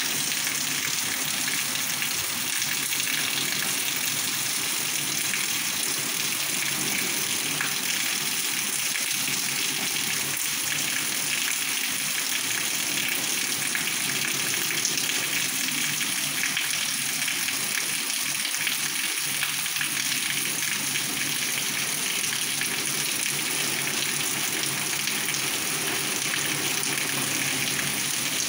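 Heavy rain falling on a paved street: a steady, even hiss that holds unchanged throughout.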